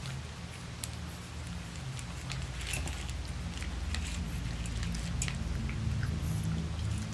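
Boston terrier puppies eating dry kibble from a metal pan: many small crunches and crisp clicks, over a low steady hum.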